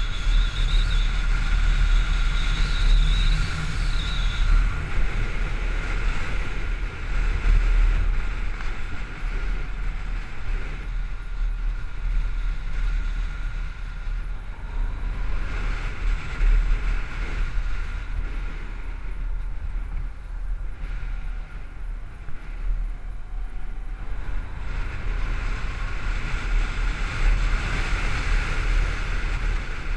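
Wind buffeting the microphone of a GoPro mounted on a moving Honda DN-01 motorcycle, a heavy steady rumble with the bike's engine and road noise underneath. It eases somewhat in the middle stretch and picks up again near the end.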